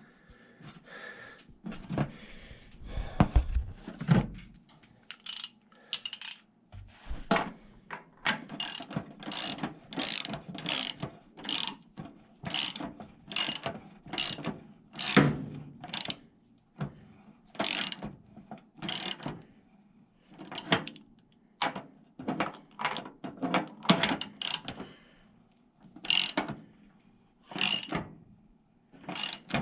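Socket wrench ratchet clicking in repeated short runs, roughly one run a second, as a new anode rod is screwed snug into a water heater tank. Fainter handling and scraping fill the first few seconds.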